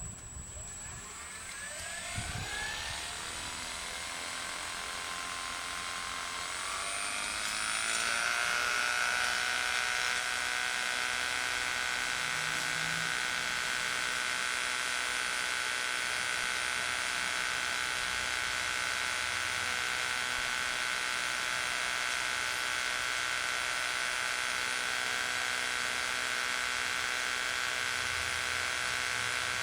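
Small electric motor driving a radio-controlled model wood chipper, spinning up with a rising whine over about eight seconds, then running steadily at a high, even whine.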